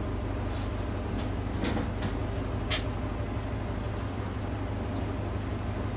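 Several short scratchy strokes of a bristle brush laying oil paint on canvas, mostly in the first three seconds, over a steady low hum.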